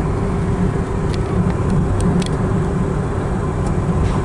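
A car driving along a road, heard from inside the cabin: steady engine and road rumble, with a few light clicks between about one and two seconds in.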